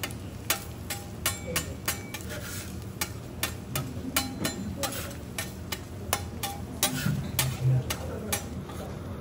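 Steel spatula and fork clicking and scraping on a steel teppanyaki griddle as sliced garlic is spread and turned, in quick irregular taps about two or three a second.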